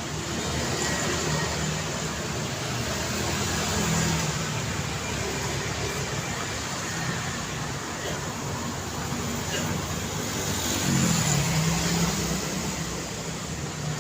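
City street traffic: a steady wash of car engines and tyre noise, swelling as vehicles pass about four seconds in and again around eleven seconds.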